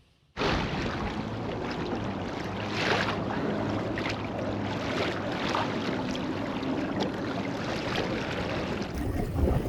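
Wind and water rushing steadily around a kayak on open water on a very windy day. About nine seconds in, wind buffeting the microphone grows louder.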